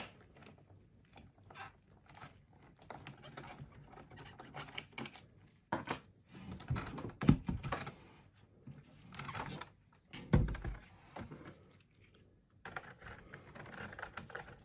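Hands working on a plastic UPS battery cartridge holding heavy lead-acid cells: small clicks and scrapes as its screws come out, then knocks as it is turned over and moved on the mat. A deep thump about ten seconds in is the loudest sound.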